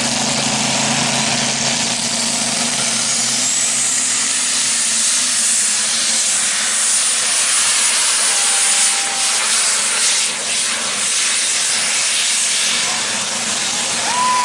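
Super stock diesel pulling tractor running at full power under load, a loud steady rush of engine and turbocharger noise. A high turbo whistle rises about three seconds in, then holds.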